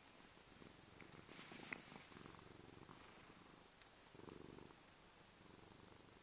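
Domestic cat purring close up, faint and pulsing in waves with its breathing. A short hiss and a sharp click come about a second and a half in.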